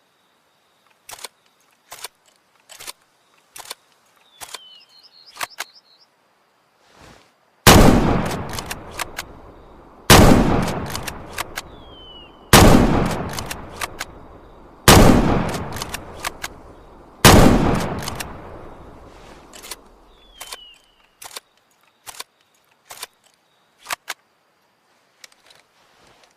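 Remington-made M1903 bolt-action rifle: a run of sharp metallic clicks, then five shots about two and a half seconds apart, each with a long echoing tail, then more clicks.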